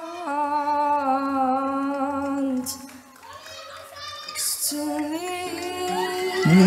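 A young boy singing in a soft, soothing voice, holding long notes. He breaks off for about a second and a half near the middle, then sings again, the notes stepping upward.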